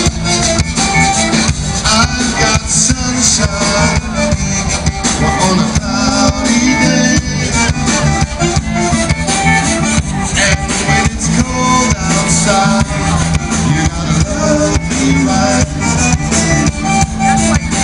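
Live band playing loud amplified music on stage, with drums, bass and guitar keeping a steady driving beat.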